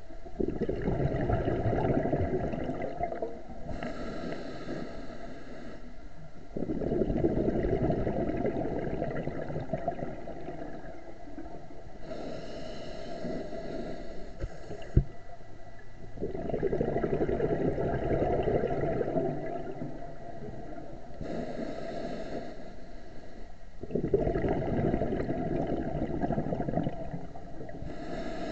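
Scuba diver breathing through a regulator underwater in slow, regular breaths about eight seconds apart. Each breath is a hissing inhale followed by a longer, louder rush of exhaled bubbles. A single sharp click comes about halfway through.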